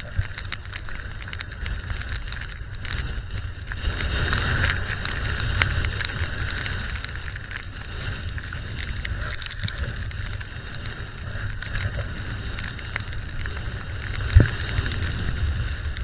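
Blizzard wind buffeting the camera's microphone during a ski descent, a steady low rumble over the hiss of skis running through snow, with many small clicks. A single sharp thump near the end.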